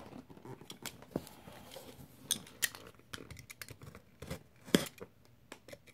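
Blue plastic utility knife handled against a cardboard box, making scattered light clicks and taps, about a dozen spread over several seconds.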